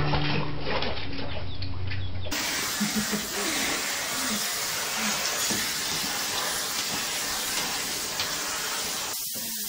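Vacuum cleaner running with a steady hiss as its hose nozzle is drawn over a dog's coat, starting about two seconds in after a short stretch of background music.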